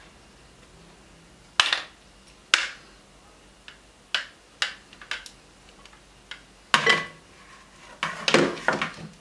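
A plastic potato ricer being handled over a glass bowl and put down on a stone countertop, making a string of sharp, irregular knocks and clicks. The loudest clatters come about seven seconds in and again near the end, as the ricer is opened and laid down.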